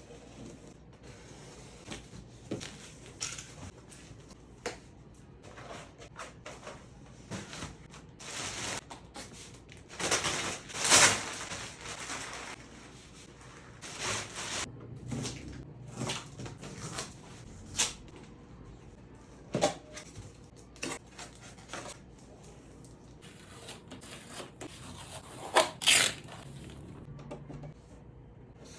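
Unboxing handling sounds of a 3D printer's cardboard box and packaging: irregular scraping and rustling with scattered knocks and clicks. The loudest stretches of rustling come about a third of the way in and again near the end.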